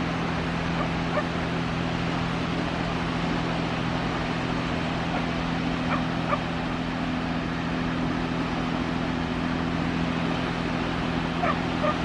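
Steady wind noise on the microphone with a low, even hum underneath, and a few faint, short, higher-pitched sounds scattered through it.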